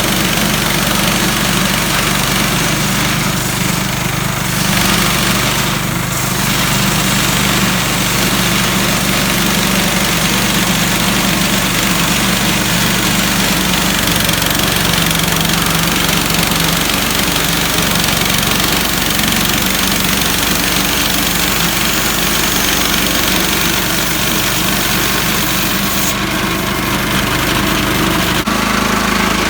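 Small gasoline engine of a Harbor Freight band sawmill running steadily, its note shifting slightly about halfway through and again near the end.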